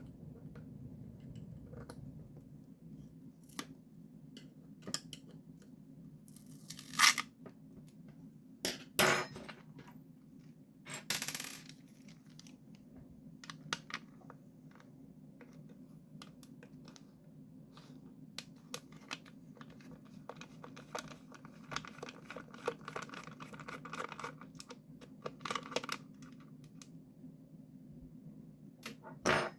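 Hand work on a plastic speaker cabinet during disassembly: scattered clicks and scrapes of parts and screws, with a few louder rustling knocks in the first half, over a faint steady low hum.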